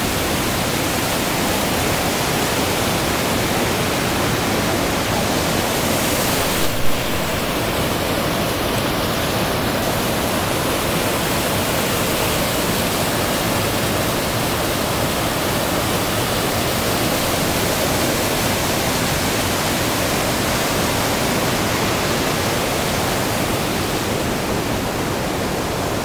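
Waterfall and cascading whitewater rushing over rocks: a steady, loud, even rush of water, with a brief thump about seven seconds in.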